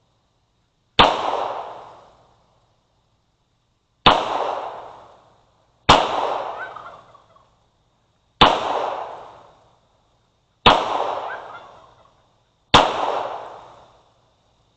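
Six single shots from a 1911 .45 ACP pistol, fired at an unhurried pace two to three seconds apart. Each report is followed by a fading echo.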